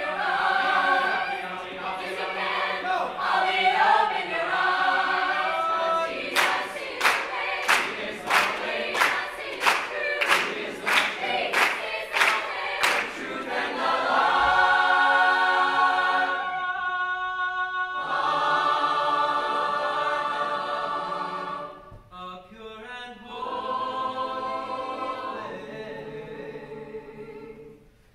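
Mixed high-school choir singing a cappella, with a run of sharp percussive beats, about two a second, for several seconds in the middle. The choir then holds long sustained chords, briefly dropping out and coming back softer toward the end.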